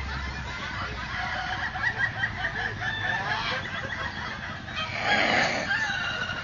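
Several Ayam Ketawa (laughing chicken) roosters crowing at once, their crows broken into rapid stuttering notes, with a louder, rougher call about five seconds in.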